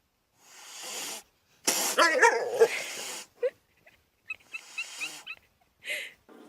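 A pet animal crying out in several short, separate bursts, the loudest about two seconds in, followed by a run of quick high chirps.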